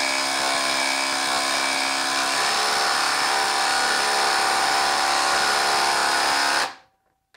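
Ryobi HP brushless impact driver hammering continuously as it drives a large bolt into a wooden stump, a steady, loud rattle whose pitch shifts a little over two seconds in. It cuts off abruptly near the end as the trigger is released.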